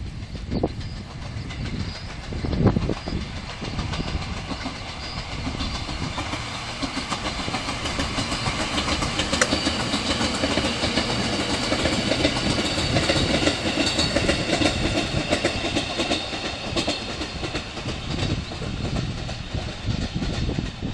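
Electric multiple-unit commuter train passing, its wheels clacking over the rail joints with a high metallic ring. It grows louder to a peak a little past halfway, then eases as it moves away.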